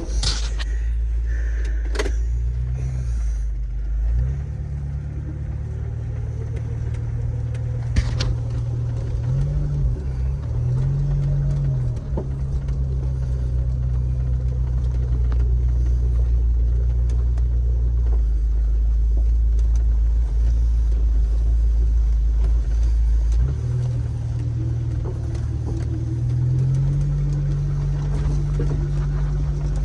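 Jeep engine running low and steady as it drives, its pitch rising and falling with the throttle now and then. A few sharp knocks near the start and about eight seconds in.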